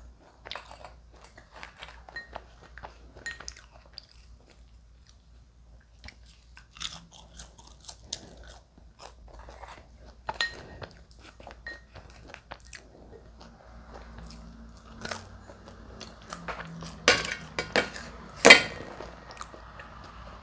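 Close-miked chewing and crunching of fried potato fries, crisp outside and soft inside, with small mouth clicks. A few louder, sharper clicks come near the end.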